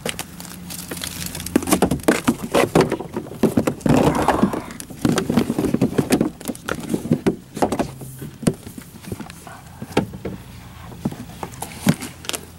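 Irregular knocks, clunks and rustling as thick power cable is handled and pulled through a car, loudest and busiest in the middle.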